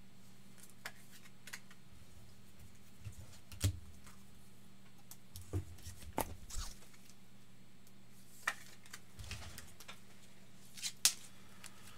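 Trading cards being handled off camera and slid into plastic sleeves and top loaders: scattered sharp clicks and soft rustles of plastic and card, the sharpest about a third of the way in and another near the end, over a faint steady hum.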